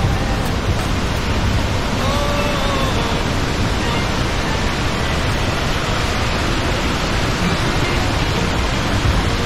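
Loud, steady rush of heavy falling water from the Iguazú Falls, an even noise with no breaks.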